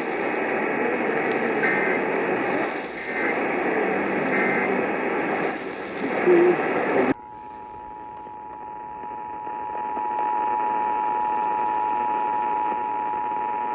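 Radio static hiss that cuts off suddenly about seven seconds in. It is followed by the Emergency Alert System attention signal, a steady two-tone alarm at 853 and 960 Hz heard over a radio broadcast, which gets louder a few seconds after it starts.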